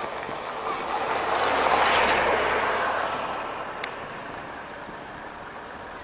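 A vehicle passing by: its noise swells to a peak about two seconds in and then fades away. A single sharp click comes near the four-second mark.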